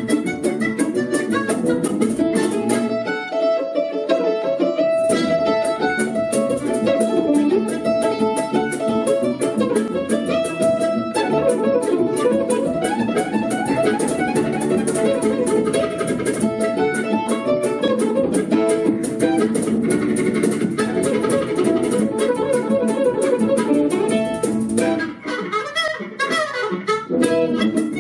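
Live band playing an instrumental stretch of a song with a steady beat.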